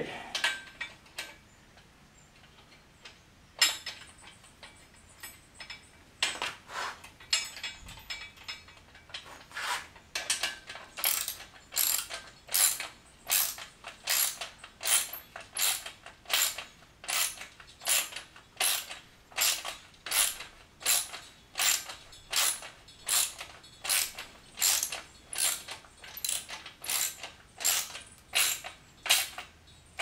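Hand socket ratchet clicking as bolts are tightened into a steel rack bracket: a few scattered strokes at first, then from about ten seconds in a steady run of ratcheting back-strokes, about three every two seconds.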